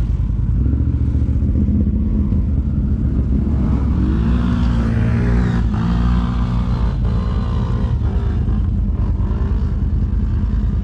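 ATV engine running and revving, its pitch rising and falling a few times through the middle.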